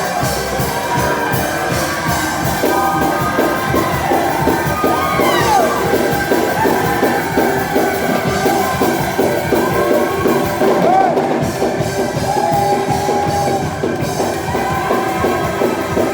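Live gospel praise music from a church band, with held chords and a steady beat, and voices singing out, shouting and whooping over it.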